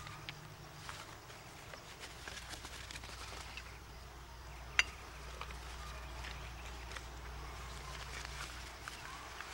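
Faint rustling and scattered small ticks of hands working soil and bedding plants in a flower bed, over a low hum. One sharp click about five seconds in is the loudest sound.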